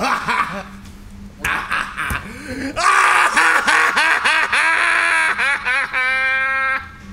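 A man's loud laugh in rapid choppy bursts, ending in one held open-mouthed yell near the end.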